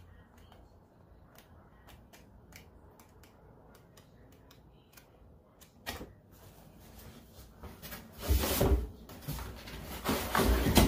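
Pages of a scrapbook paper pad flicked through, a series of faint ticks. From about eight seconds in, louder rustling and bumps of items being handled and moved about.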